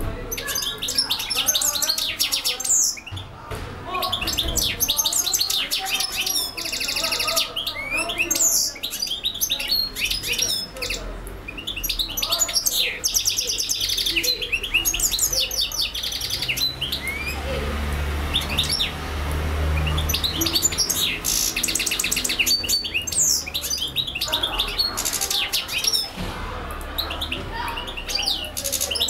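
European goldfinch singing a long, nonstop song of rapid high twittering phrases and trills, with a buzzy held trill about seven seconds in.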